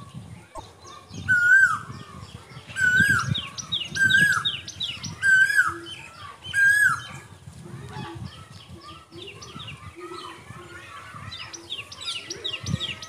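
Wild birds calling: one bird gives a loud call five times, about one every second and a quarter, over a steady background of smaller chirps.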